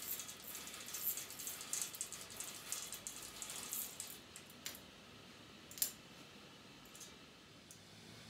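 A zebra roller blind being raised by its cord: a fast, soft rattle of small clicks for about four seconds, then a few separate clicks, the sharpest one near six seconds in.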